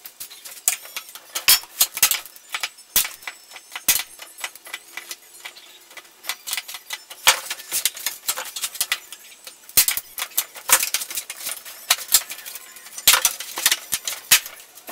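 Sheet-metal inner fender brace of a 1963 Chevy C-10 pickup tapping and clinking against the fender panel as it is handled and shifted into place by hand: irregular sharp metal clicks, some in quick clusters.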